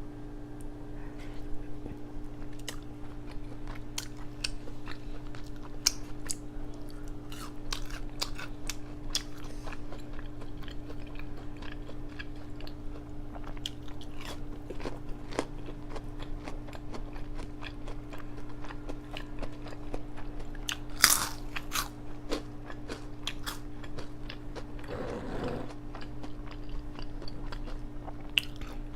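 Close-miked biting and chewing of crunchy Hot Cheeto-crusted food: a steady run of sharp crunches and chewing, with one louder crunch about 21 seconds in.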